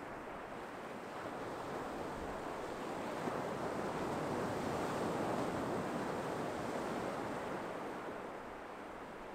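Ocean surf washing onto a beach: a steady rush of breaking waves that swells to a peak about halfway through and eases off near the end.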